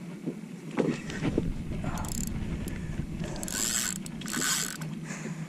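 Spinning reel being cranked while fighting a hooked redfish, its gears and handle giving a fast, steady rattle. Three short bursts of hiss come in the middle and later part.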